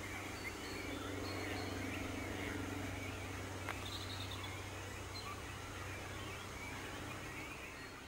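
Several songbirds singing: a busy mix of short chirps and warbling phrases over a steady low hum, with one sharp click near the middle.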